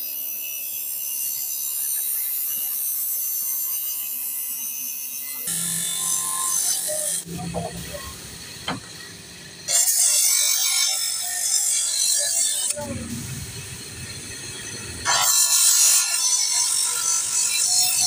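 Motor-driven abrasive cut-off disc grinding through steel-wire-braided hydraulic hose in three bouts of harsh high hissing, with quieter, rougher spells between them as the hose is repositioned.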